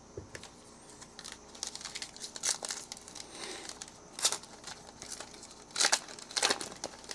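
Foil wrapper of a trading-card pack being crinkled and torn open by hand: a run of sharp crackles, with the loudest rips about two and a half, four, and six seconds in.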